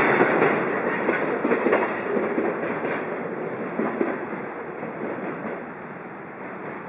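Container freight train rolling past, its wagon wheels knocking over the rail joints, the noise fading steadily as the train moves away.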